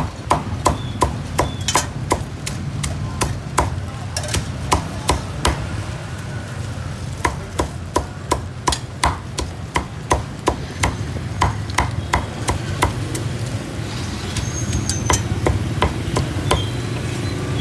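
A cleaver chopping roast pork on a chopping block in quick, repeated strokes, two to three a second, with a brief lull partway through. The chops thin out near the end, over a steady low background rumble.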